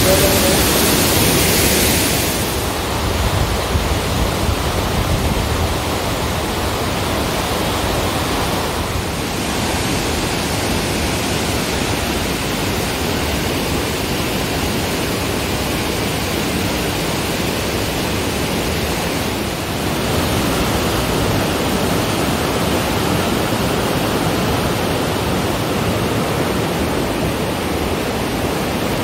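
Waterfall in heavy spring snowmelt flow, loud and raging close up for the first two seconds. The sound then settles into the steady rush of the fast creek below it.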